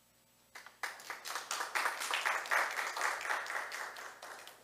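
Audience applauding: a few claps about half a second in, quickly building into dense clapping that peaks midway and dies away near the end.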